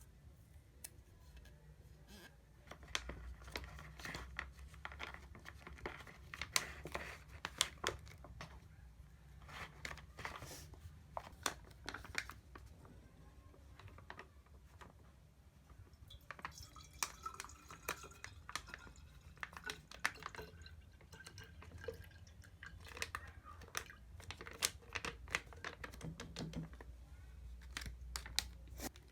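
Irregular small clicks, taps and knocks of things being handled, over a steady low hum.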